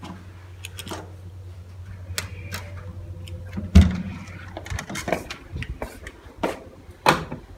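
A wooden room door with a metal lever handle and electronic lock being opened and gone through: a run of sharp clicks and knocks from the handle and latch, with one heavy thump about four seconds in, then more clicks. A low steady hum underneath stops about five seconds in.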